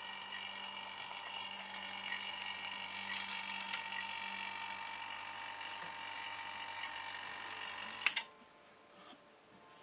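A small electric machine running steadily with a low hum and a high whine, cut off abruptly with a click about eight seconds in.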